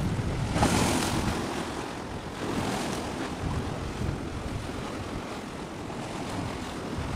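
Wind blowing across the microphone over the sound of surf, a steady hiss with no tones. The hiss swells about a second in and again near three seconds.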